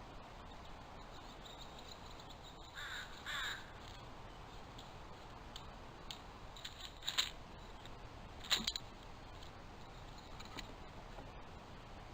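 Two harsh, raspy calls of a Steller's jay in quick succession about three seconds in, followed by a few sharp knocks, the loudest two about a second and a half apart.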